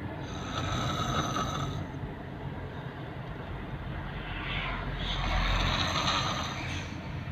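A person snoring: two long snores about four seconds apart, the second longer and louder, over a steady low rumble.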